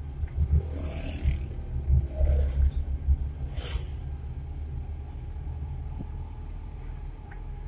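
Engine and road rumble inside the cab of a moving Suzuki Carry 1.0 pickup: a steady low drone with uneven thumps over the first three seconds and two brief whooshes, about one second in and again near four seconds.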